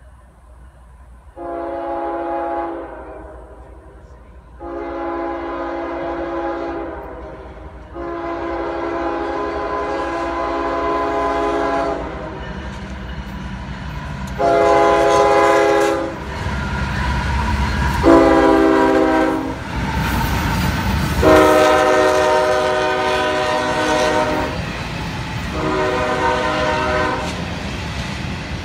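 CSX freight locomotive's air horn blowing seven blasts, some long and some short, as the train approaches and passes a grade crossing. Underneath is the low rumble of the diesel locomotives, loudest in the middle as they pass, followed by the cars rolling by.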